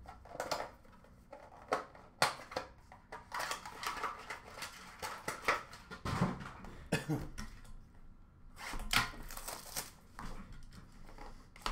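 Cardboard trading-card boxes and their wrapping being handled and opened: irregular clicks, taps and crackly rustles.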